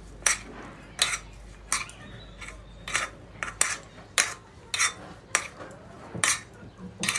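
Two metal spoons tossing fried liver and potato cubes in a wide shallow pan, clinking and scraping against the pan in irregular strokes, roughly two a second.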